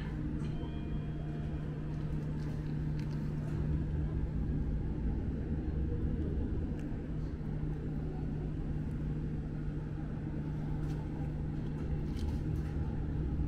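Steady low machine hum and rumble of background equipment, with a few faint light clicks of food being handled.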